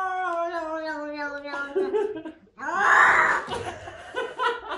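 Cat in a defensive arched-back stance yowling with one long, drawn-out, slightly falling moan, then hissing loudly about three seconds in. Laughter follows near the end.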